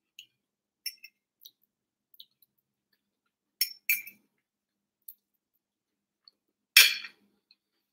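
Metal fork clinking and scraping against a ceramic plate: two sharp clinks a little before the middle and one louder, brief scrape near the end, with faint small clicks in between.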